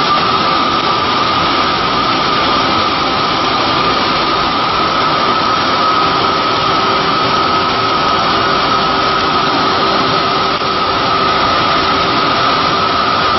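Cincinnati Milacron Model AM 5-axis CNC router profiler running, a steady high whine over a loud, even rushing noise.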